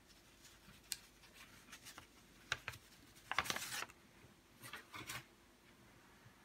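Faint handling noise: scattered light clicks and rustles, with a longer scraping rustle about three and a half seconds in and two shorter ones a second or so later.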